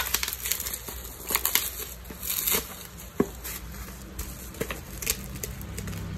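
Bubble wrap packaging being cut open with scissors and pulled apart: a run of sharp snips and short bursts of plastic crinkling and tearing.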